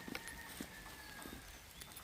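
Light rain falling, with a few scattered, irregular drips and soft knocks.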